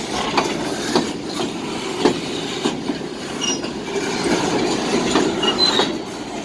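Freight train cars rolling past close by: steel wheels knocking over rail joints with a steady rumble, and brief high-pitched wheel squeals in the second half.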